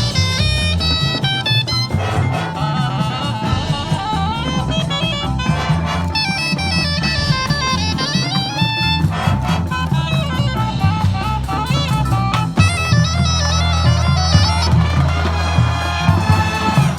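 Marching band performing: brass playing chords and melodic lines over a drumline, with the low brass growing heavier about two-thirds of the way through.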